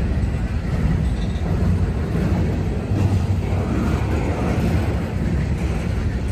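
Freight train cars (boxcars, a centerbeam flatcar and tank cars) rolling past on the rails, their wheels making a steady low rumble.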